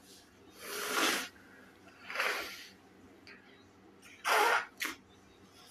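A person's breath hitting the microphone in short, sharp bursts of air, four times: about a second in, about two seconds in, and twice in quick succession about four and a half seconds in. The song playing in the app is not heard.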